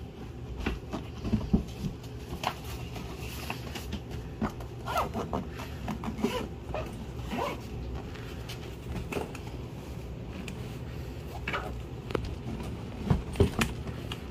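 Zipper and fabric handling noises from a pet carrier backpack with a dog inside: irregular rustling and clicks, with a few louder knocks about a second and a half in and again near the end.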